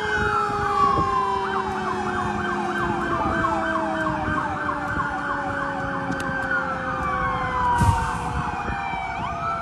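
Police car sirens sounding: a wail that changes to a fast yelp of about five sweeps a second, then slows back to a falling wail and starts rising again near the end. A second siren's tone winds slowly down underneath.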